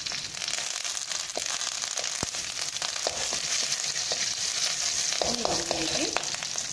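Mustard seeds, dried red chillies and curry leaves sizzling in hot coconut oil in a metal kadai, a steady hiss with scattered sharp pops. A metal ladle stirs them near the end.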